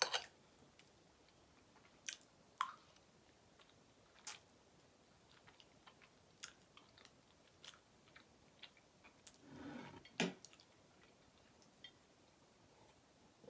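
A person chewing soft cheesecake, close to the microphone: scattered faint mouth clicks and smacks, with a longer wet chewing sound about ten seconds in.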